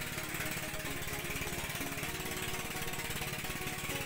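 Outrigger fishing boat's small engine running steadily under way, a fast, even chugging.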